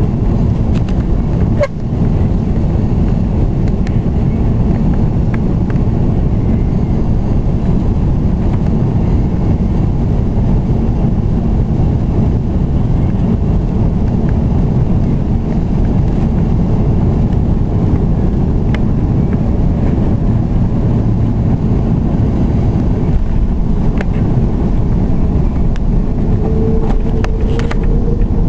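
Steady low rumble of jet engines and airflow, heard inside the cabin of an Airbus A330-200 on final approach with its flaps extended. A faint, slightly rising tone joins in near the end.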